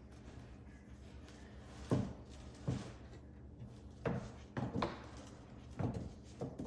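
A cat's tail thumping against a surface: about seven short, irregular soft thuds, two of them coming in quick succession near the middle.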